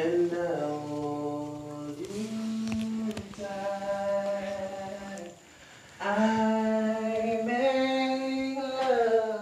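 A man humming a slow tune in long held notes that step up and down in pitch, with a short break about five seconds in.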